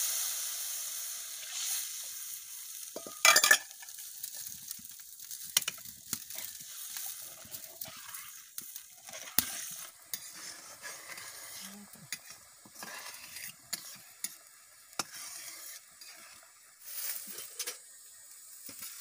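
Water just poured into hot spiced oil in a kadai sizzles with a strong hiss that dies down over the first couple of seconds into a softer simmer. A spatula stirs the curry, scraping and knocking against the pan, with one loud knock about three seconds in.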